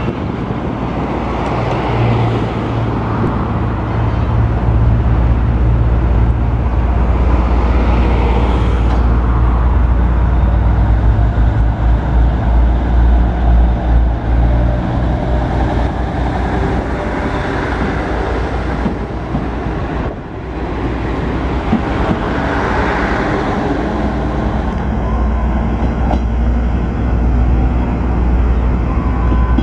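KiHa 37 diesel railcar pulling away from a station, its diesel engine running under power as it moves off and passes close by, then receding. The sound dips briefly about twenty seconds in.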